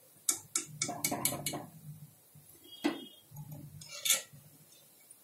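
A wire-mesh frying skimmer clinks and scrapes against an aluminium kadhai as fried pakoras are lifted out of the oil. A quick cluster of metal clinks comes in the first second and a half, then one ringing clink about 3 s in and a few more near 4 s.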